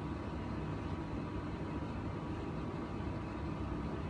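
Steady low rumble and hiss of background room noise, with a faint steady whine.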